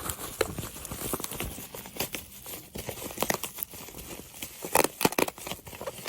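Packaging being handled and worked open: irregular crinkling and rustling with many sharp little clicks and crackles.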